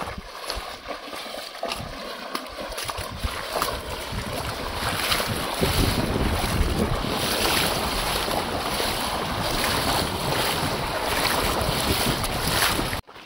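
Feet splashing through a shallow, stony river while wading and jogging across, with the water rushing around the legs; from about halfway through, wind buffets the microphone with a low rumble. The sound cuts off suddenly just before the end.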